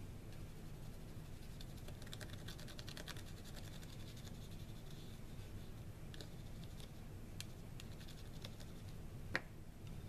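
Watercolor crayon scratching over embossed cardstock in many quick, faint strokes, with one sharper tap near the end.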